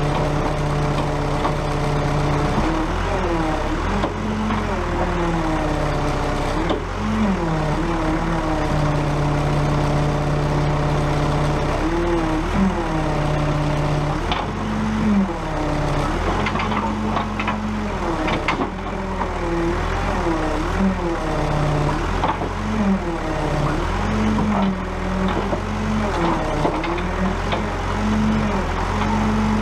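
JCB backhoe's diesel engine working under hydraulic load, its speed repeatedly dipping and recovering as the arm and bucket work. A few sharp cracks or knocks come about halfway through.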